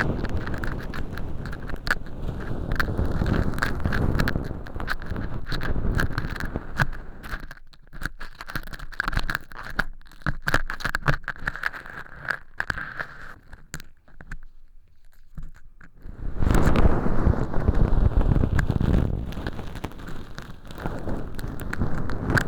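An ear pick scraping dry cork-chip fake earwax inside a silicone ear model, with dense crunchy crackling over a low rumbling rub. The crackling thins to scattered clicks in the middle, then grows dense and loud again about two-thirds of the way in.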